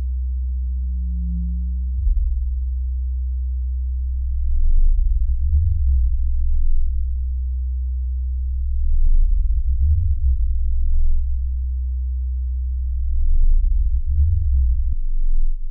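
Low electronic sine-tone drone, steady and deep. A higher tone cuts off about two seconds in, and three swells of rough low sound rise over the drone, about every four seconds.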